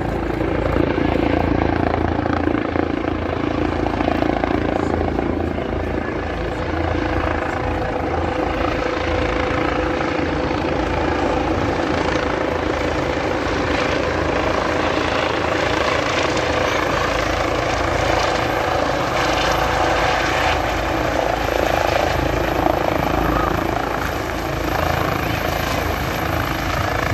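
Austrian police (Flugpolizei) helicopter descending and landing at close range, its rotor and turbine engines running loud and steady with a high turbine whine. A second helicopter is circling overhead.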